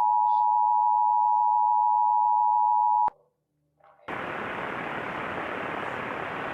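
Emergency Alert System two-tone attention signal, a steady dual-pitched tone that cuts off with a click about three seconds in. After a short silent gap, a steady hiss starts about a second later.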